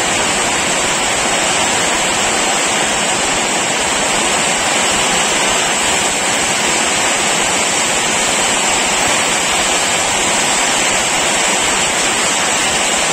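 Heavy rain pouring down in a steady, loud hiss with no break.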